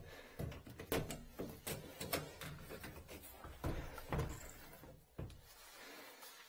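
A bathroom ceiling access panel being pushed up and slid open by hand: a string of sharp knocks and clatters, then quieter near the end.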